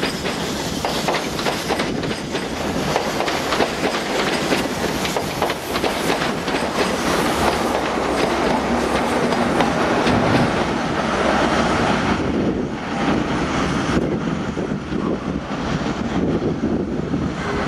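East Coast InterCity 125 High Speed Train passing: the Mark 3 coaches' wheels clatter steadily over the rail joints, and the diesel power car comes level near the end.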